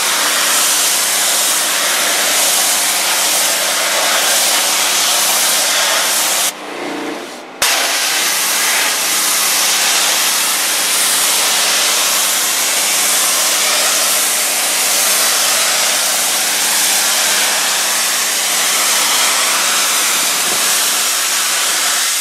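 High-pressure washer jet spraying a tiled exterior wall, a loud steady hiss of water striking the tile over a low steady hum. The spray drops off for about a second some six and a half seconds in, then resumes.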